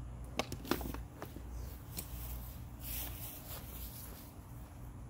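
A few light clicks and a brief rustle about three seconds in, as the damaged shift cable of a Pinion gearbox is handled and worked out of its black housing by hand.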